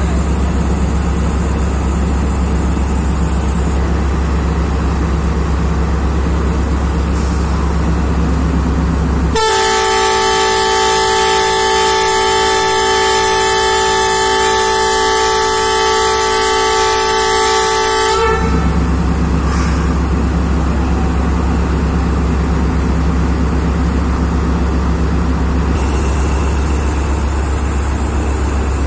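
Horn of a Pakistan Railways ZCU-30 diesel locomotive sounding one long blast of about nine seconds, starting about nine seconds in: a chord of several steady tones. Before and after it, the low steady drone of the locomotive's diesel engine running at the platform.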